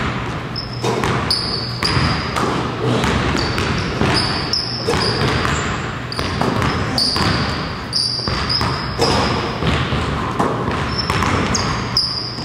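Basketballs bouncing on a hardwood gym floor during shooting drills, with many short, sharp thuds and repeated brief high-pitched sneaker squeaks.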